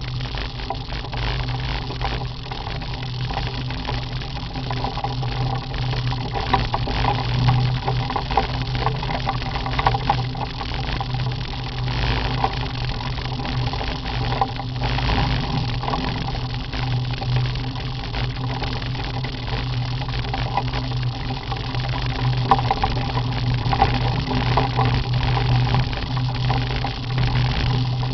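Motorcycle with sidecar running steadily at road speed, a constant engine hum with wind rushing and buffeting over the microphone.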